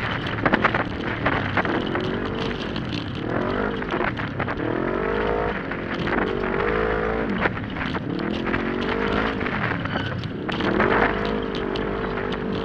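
Open 1000-class UTV engine revving hard while racing, its pitch climbing and falling over and over as the throttle is opened and lifted for the turns, with scattered sharp knocks and rattles from the machine over the rough track.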